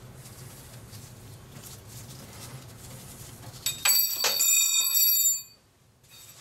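A metal hand tool is dropped about four seconds in. It clatters in a few quick hits and rings with a bright metallic tone for about a second and a half. Before the drop there is a low steady hum.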